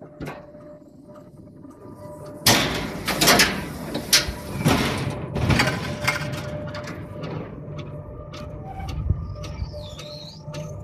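Alpine coaster sled running down its metal rails: a rattling, rumbling ride noise with a faint steady hum, growing louder suddenly about two and a half seconds in as the sled picks up speed.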